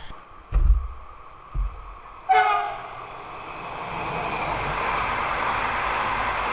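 A TILO electric multiple unit gives a short horn blast, then runs past close by with a rushing of wheels on rail that builds over a couple of seconds and stays loud. Two low thumps come shortly before the horn.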